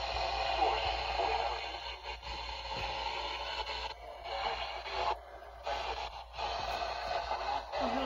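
Weather-alert radio broadcasting a severe thunderstorm warning: a voice reading the warning through the radio's small speaker over steady hiss, broken by short pauses between phrases.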